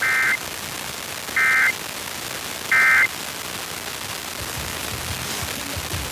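Emergency Alert System end-of-message data bursts closing a Required Weekly Test: three short buzzing bursts about a second and a half apart, over steady FM radio hiss.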